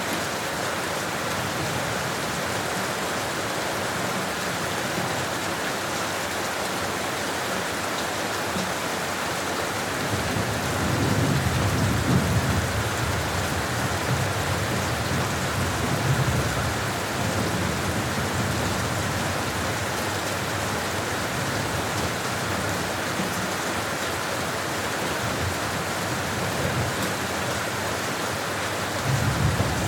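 Steady rain falling, an even hiss throughout. Low rumbles of thunder roll in about a third of the way through, lasting several seconds, and again near the end.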